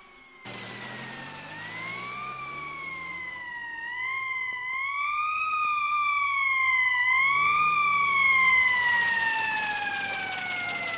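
Emergency vehicle siren wailing in slow rises and falls, cutting in about half a second in, then gliding steadily down in pitch over the last few seconds, with a low hum underneath.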